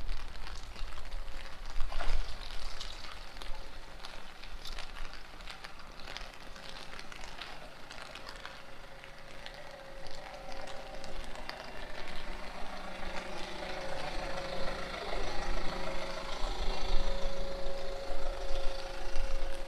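Steady rain pattering and dripping on a street, with wind buffeting the microphone. From about halfway through, a motor vehicle's engine can be heard running, with a steady hum that grows stronger towards the end.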